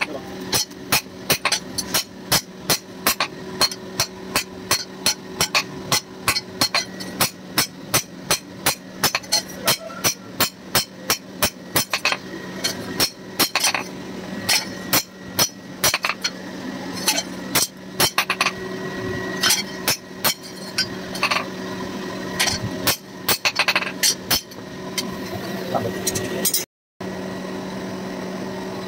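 Red-hot steel knife blade being hand-forged on a steel anvil: hammer blows ring at about three a second, thinning to scattered strikes after about sixteen seconds. A steady hum runs beneath. Near the end the hammering stops, leaving only the hum.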